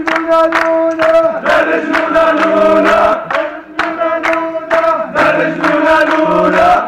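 A crowd of young men chanting a zaffeh song in unison to sharp, regular beats, about three a second.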